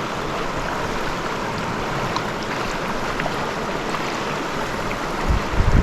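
Small mountain stream's water running steadily, with a brief low rumble about five seconds in.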